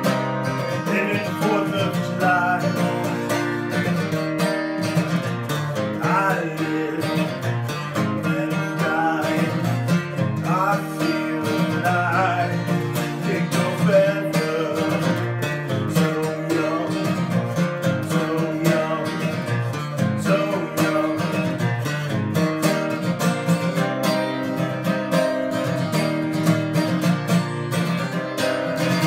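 Acoustic guitar strummed steadily, with a man singing over it through roughly the first half; after that the guitar goes on alone.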